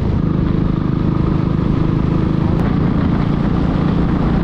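Royal Enfield Classic 350's single-cylinder engine running steadily while the motorcycle is ridden, with a steady rush of wind and road noise.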